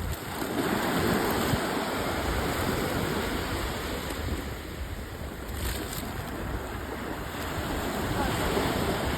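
Sea waves washing, with wind buffeting the microphone, swelling a second in and again near the end.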